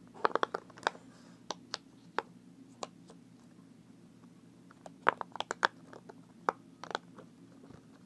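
Round rainbow silicone pop-it fidget toy having its bubbles pressed in by fingers: quick runs of soft pops. One flurry comes near the start and another about five seconds in, with single pops scattered between.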